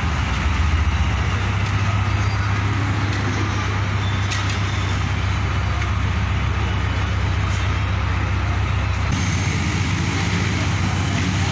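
Pakistan Railways ZCU-30 diesel locomotive (no. 6306) running, a steady low engine drone under a broad mechanical rush. The low tone shifts about nine seconds in.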